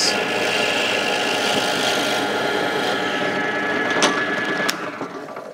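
Axminster AW285PD bench pillar drill running steadily while a brad point bit bores into a small wooden disc. Near the end it is switched off with a click and the motor winds down.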